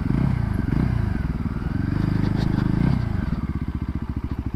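Voge 300 Rally's single-cylinder engine as the motorcycle slows: engine speed falls, rises once, falls again, and about three seconds in it settles into an even idle with a regular beat.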